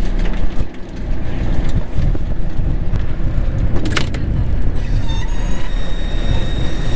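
Fishing boat's engine running with a steady low rumble and wind on the deck. From about five seconds in a steady whine joins as the hydraulic pot hauler winds a crab pot up from the bottom, with a single clank just before.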